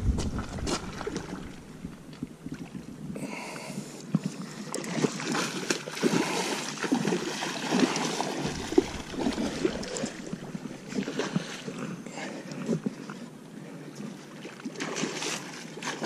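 Hooked coho salmon thrashing at the surface close to shore, with irregular splashes of water.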